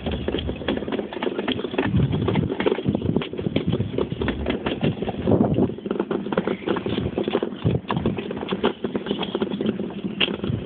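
Toboggan sliding fast down the ski slope, with a dense, irregular clatter of knocks and rattles over a rough rumble.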